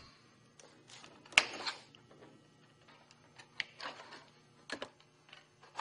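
Thin sheet-metal rake trim being bent and handled by hand, giving scattered sharp clicks and light metallic taps, the loudest about a second and a half in.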